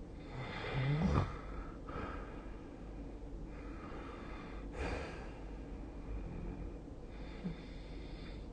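A sleeping person snoring and breathing heavily, with noisy breaths about every three seconds. A short snort about a second in is the loudest moment.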